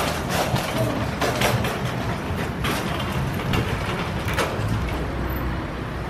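Loaded wire shopping cart rattling and clattering as it is pushed along on its casters, rolling out of the store onto paving stones, with irregular knocks from the metal basket.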